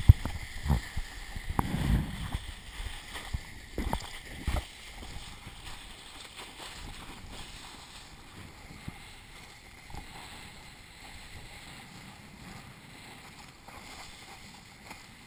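A kiteboard planing over choppy sea, with water splashing and rushing past the GoPro, heard through its housing. Several thumps and splashes come in the first few seconds, then it settles into a steady, quieter wash of water.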